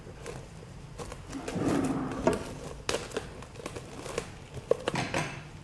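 Plastic cling film stretched over a bowl crinkling and crackling irregularly as a gloved hand presses and smooths it down.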